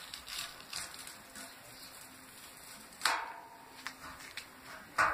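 Hands picking at and peeling tape off a painted surface: short scratchy rustles, with two louder tearing rustles about three and five seconds in.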